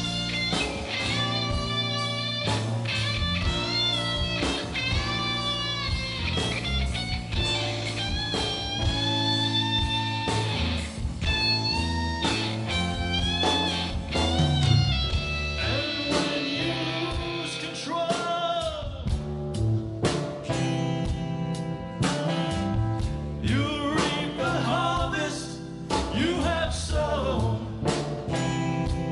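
Live rock band playing: electric guitars, bass and drums, with a lead line of long notes that bend and slide in pitch.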